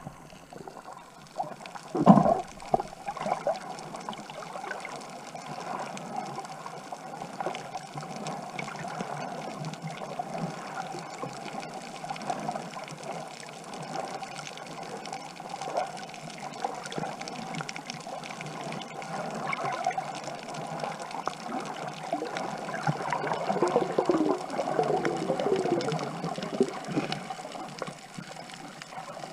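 Water sloshing and trickling right against the microphone, with a sharp splash about two seconds in.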